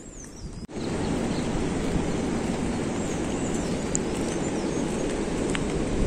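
Steady wind noise buffeting the microphone outdoors, starting abruptly under a second in, with a few faint bird chirps above it.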